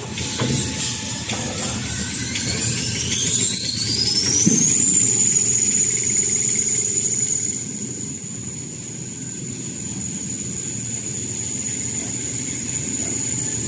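Toilet-paper and kitchen-towel production line speeding up. A high whine rises steadily over about four seconds, then levels off into a steady high whine over the machine's even running rumble.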